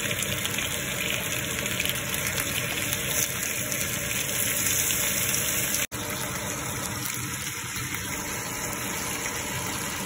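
Oil sizzling steadily in a frying pan as garlic, lemon slices and salmon steaks fry. The sound drops out for an instant about six seconds in, then the sizzle carries on.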